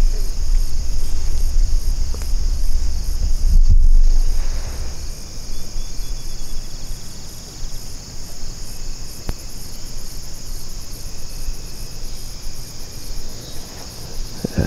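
Evening insect chorus in late summer: a steady, high shrill with a fast, evenly pulsing trill above it. A low rumble is also heard for the first four seconds or so, then drops away.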